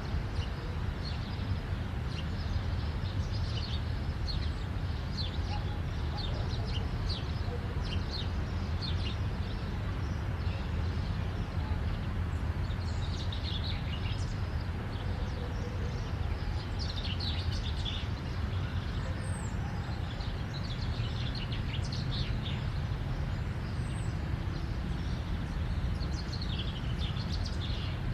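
Steady rumble of distant highway traffic, with small birds chirping over it in short scattered calls.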